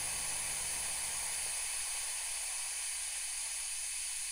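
Steady static white noise, like an untuned TV, picked up by a microphone while a VST denoiser is being turned up. About two seconds in, the lower part of the hiss fades out, leaving a thinner high hiss.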